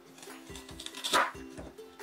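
Kitchen knife cutting raw lotus root on a wooden cutting board: a few dull knocks of the blade on the board and one crisp, loud crunch about a second in as the knife goes through the root. Background music plays throughout.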